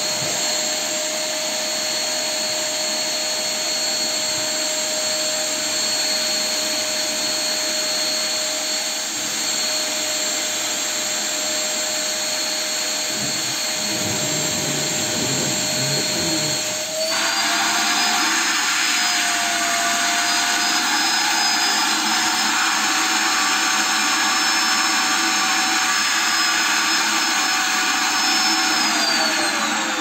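Drum-type wet/dry vacuum running with a steady whine and rush of air through its wide flexible hose, fabric rustling as a jacket is drawn in. About two-thirds of the way through, the motor note steps up higher and louder with a jacket sucked against the hose mouth. Near the end the motor winds down, its pitch falling away.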